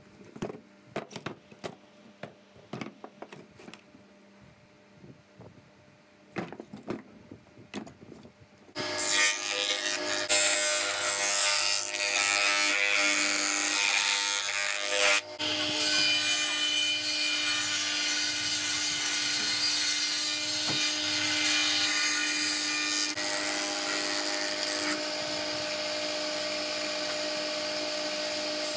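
Light knocks and clatter of scrap wood slabs being handled for the first several seconds. About nine seconds in, a woodworking machine's table saw starts running loudly and steadily with a hum, ripping bark-covered slabs, with a brief drop about fifteen seconds in.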